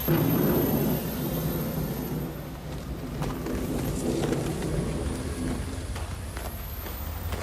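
Street traffic with car horns honking in sustained low blasts over a steady engine and road rumble. The loudest blast starts abruptly at the opening and holds for about a second, and more horn blasts come around three to four seconds in.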